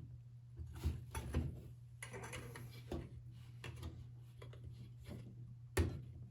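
Hand-assembly clicks and knocks as the protective screen is pressed onto the housing of a World War II friction-wheel siren, a tight fit: irregular small clicks and scrapes, with one sharper knock near the end.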